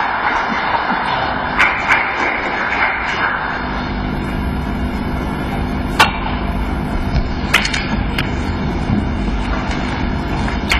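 Snooker cue striking the cue ball with a sharp click about six seconds in, followed by a couple of lighter ball knocks, over a steady background hiss of the arena. A few fainter clicks come earlier.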